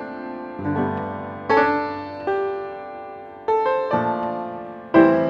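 Background piano music: chords struck about once a second, each dying away before the next.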